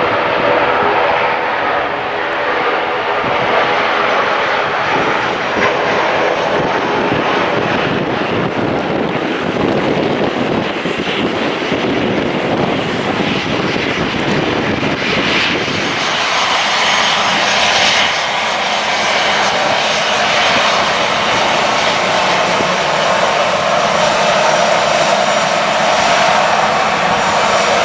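Jet airliner engines running loud and steady, the tone of the engine noise shifting about halfway through.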